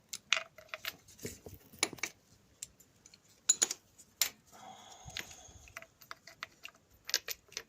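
Metal hand tools clinking and tapping as a spark plug socket and extension bars are handled and fitted down into a motorcycle engine's plug wells: a string of separate sharp clicks, with a brief scraping sound about five seconds in.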